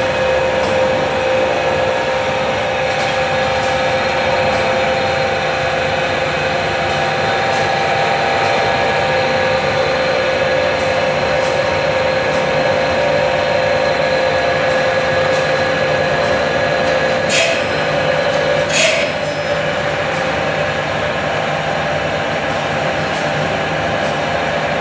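Production machinery running steadily as non-woven fabric feeds over its rollers, a constant mechanical hum with several steady tones. About two-thirds of the way through come two brief, sharp high sounds about a second and a half apart.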